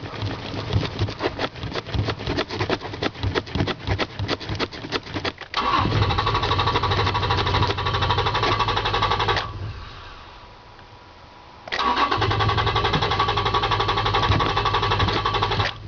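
Toyota Tacoma pickup being started with difficulty: the starter cranks for about five seconds before the engine catches and runs. The running sound fades away about four seconds later, comes back abruptly two seconds after that, then cuts off near the end.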